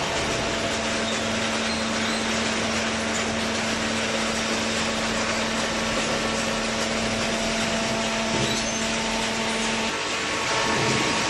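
Hydraulic cardboard baler running: a steady machine drone with a constant hum that stops near the end, when the sound changes and grows slightly louder.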